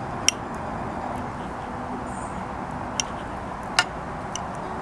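Metal knife and fork clicking against a ceramic plate while cutting meat: three sharp clicks, one just after the start and two about three to four seconds in, over a steady background hiss.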